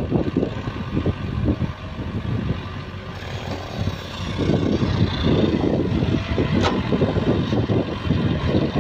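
Sumitomo mini excavator's diesel engine running and working as the machine digs soil and swings its bucket, easing off for a moment and picking up again. About two-thirds of the way through there is one sharp clank.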